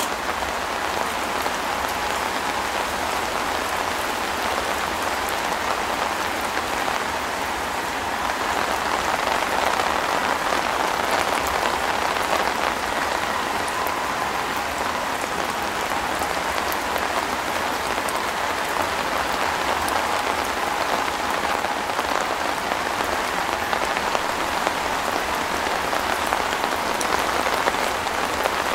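Steady rain falling, with many small drops ticking.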